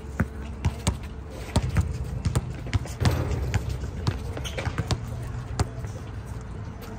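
Basketball dribbled on an outdoor hard court: a string of sharp, irregular bounces as the ball is worked toward the hoop.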